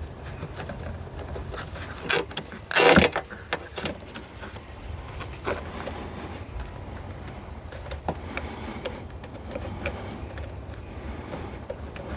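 Nylon zip-tie body panel pegs being pulled tight: scattered plastic clicks, with one loud, short ratcheting rasp about three seconds in as a tie is drawn through its head, over a steady low hum.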